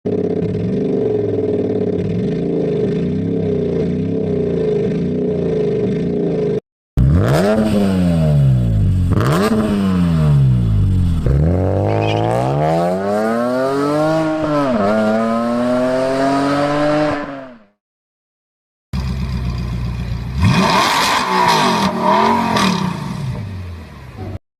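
Engine sound clips played one after another, with short gaps between them. First an engine runs steadily with an even pulse. Then an engine is revved hard about five times and dies away, and after a brief silence another engine runs and revs.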